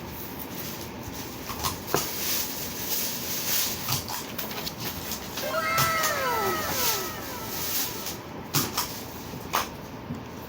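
A cat meowing: a drawn-out meow that rises and then falls in pitch, about halfway through, among scattered knocks.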